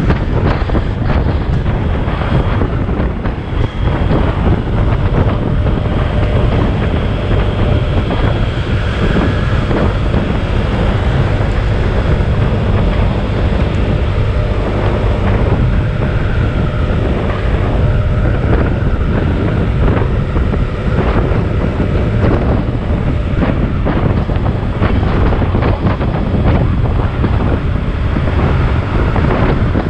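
Heavy wind noise buffeting the microphone while riding a Honda PCX scooter at road speed, with the scooter's engine and tyre noise running steadily underneath.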